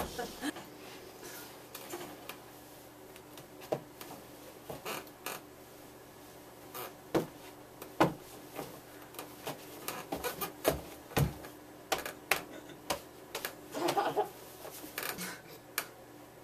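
Hair being backcombed and worked into dreadlocks with a comb and fingers: irregular faint clicks and scratchy rustles, one every second or so, over a low steady room hum.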